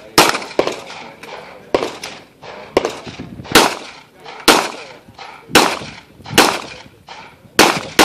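A 9mm FNH FNS-9 semi-automatic pistol firing a USPSA stage course: about ten sharp shots at roughly one a second, with a quick pair near the start, each shot trailing off in a short echo.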